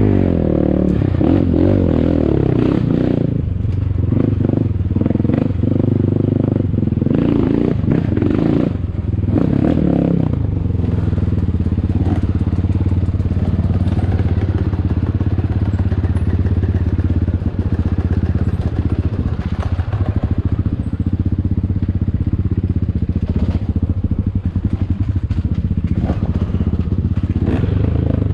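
ATAKI DR 250 enduro motorcycle engine revving up and down through about the first ten seconds, then running at a steadier pitch while riding off-road, with knocks and clatter from the bike over rough ground.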